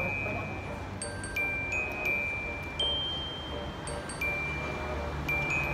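Wind chimes ringing: single clear high tones struck at irregular moments, each lingering up to about a second, over a low steady hum.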